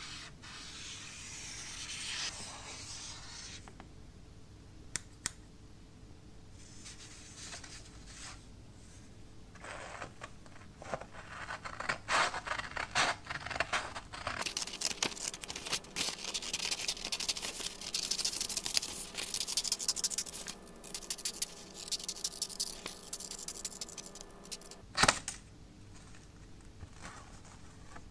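A marker scratching along a sheet of P1000 silicon carbide sandpaper, then scissors cutting through the sandpaper in a long run of short, rasping snips. One sharp knock near the end.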